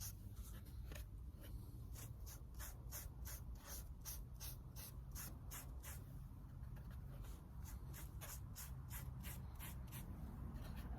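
End-grain sealer being spread on the end of a freshly milled Southern Yellow Pine board: short scratchy strokes of the applicator on the wood, about two or three a second, over a faint low hum.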